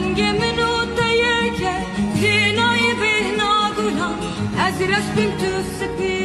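Background music: a song with a sung melody, its wavering pitch line over steady sustained accompaniment.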